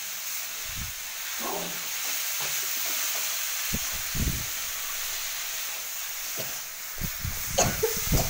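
Chopped mustard greens (lai pata) sizzling in oil in a metal kadai, with a steady hiss as they fry. A spatula stirs them, scraping and knocking against the pan now and then, with a quick run of knocks near the end.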